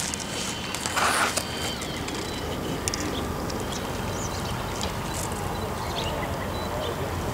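Outdoor ambience: a steady low rumble of wind on the microphone, with a brief rustle of reeds about a second in.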